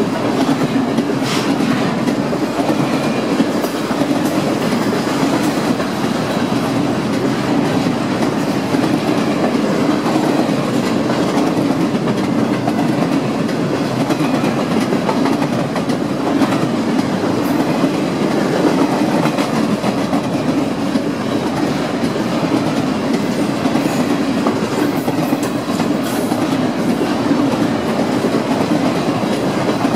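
Double-stack intermodal container well cars of a freight train rolling past: a steady rumble of steel wheels on rail with a clickety-clack from the wheels over the track.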